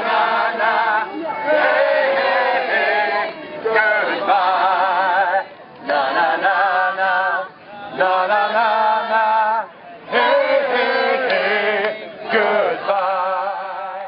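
Voices singing a song in phrases a second or two long, with short breaks between them, cutting off suddenly at the end.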